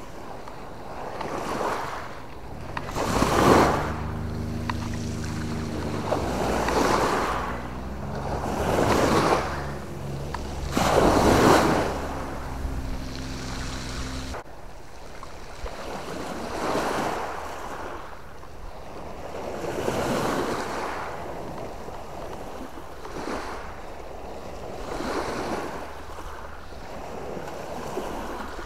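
Small waves washing in over a rocky, pebbly shoreline, each surge rising and falling back every few seconds. Under the first half runs a steady low drone that cuts off suddenly about halfway through.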